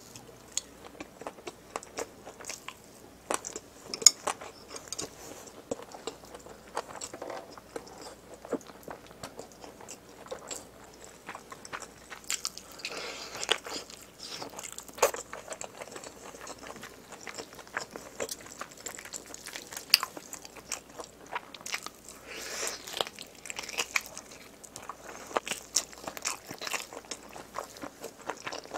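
Close-miked chewing and biting, first of egg-roll gimbap and then of spicy pork trotters (buldak-sauce jokbal). Irregular wet smacks and sharp clicks of the mouth, with louder bites now and then.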